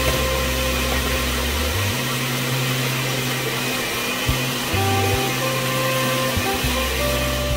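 Background music over a steady, fan-like rushing noise.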